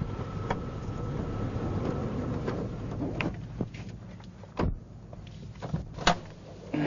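A parked car's low steady running fades away about four and a half seconds in. Then come a few sharp knocks and clicks like a car door being handled, the loudest about six seconds in.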